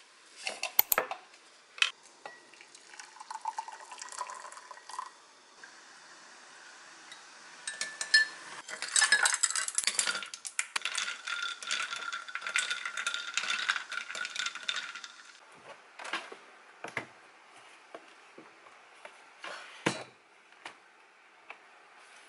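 Ice cubes clinking against the inside of a glass as iced coffee is stirred. The clinking is densest and ringing through the middle, with a few separate clinks and knocks before and after.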